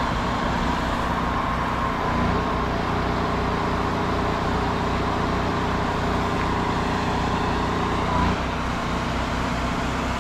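A motor-driven pump running steadily under a continuous hiss of low-pressure spray from a soft-wash gun laying bleach mix on a roof.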